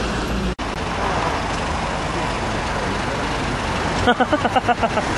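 Steady city street traffic noise, with a brief drop-out about half a second in. Near the end comes a short, shrill burst of a voice in rapid pulses, about nine a second.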